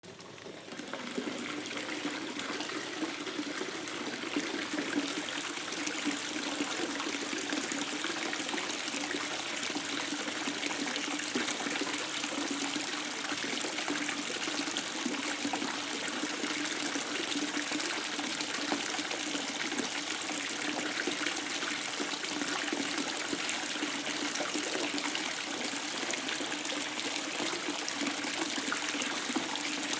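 Tap water running into a bathtub in a steady, splashing stream. It swells up within the first second.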